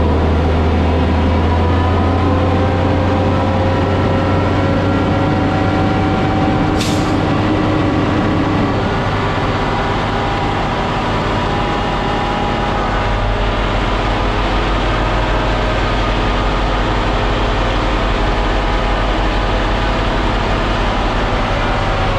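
Concrete mixer truck's diesel engine running steadily with a deep hum as the truck moves slowly along the street, with a brief hiss of air about seven seconds in.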